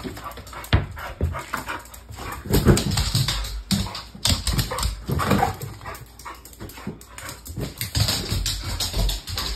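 XL American Bully dog playing with a balloon on hard floors: irregular knocks, bumps and scuffs from the balloon and the dog's paws, with short bits of dog vocalising in the middle.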